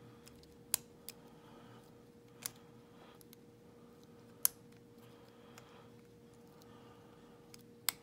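A lock pick and tension tool clicking and scraping inside an old brass padlock's keyway as the pins are searched for: a handful of small, sharp metallic clicks at uneven spacing, the loudest about four and a half seconds in, over a faint steady hum.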